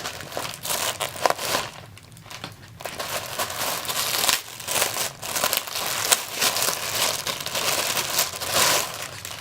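Parcel packaging crinkling and rustling in irregular handfuls as it is pulled open and unwrapped, with short crackles throughout.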